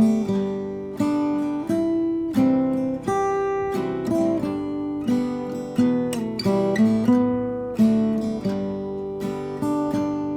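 Background music played on acoustic guitar, a slow run of picked chords, each ringing out and fading.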